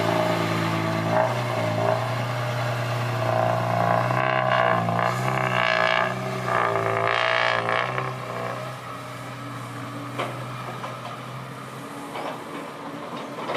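Heavy diesel truck engine running under load, growing louder for a few seconds in the middle, then fading away.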